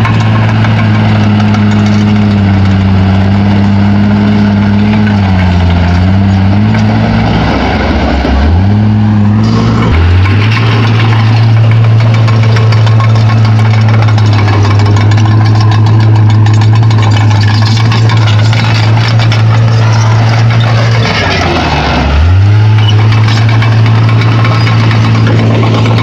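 Komatsu D31P crawler bulldozer's diesel engine running hard under load while pushing rock and soil. Its pitch sags and recovers twice, about eight seconds in and again about twenty-one seconds in.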